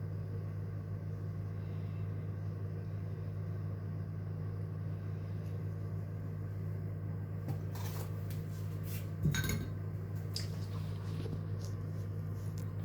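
Steady low kitchen-appliance hum, with a few clinks and clatters of dishes or a baking tray being handled about two-thirds of the way through, one knock louder than the rest.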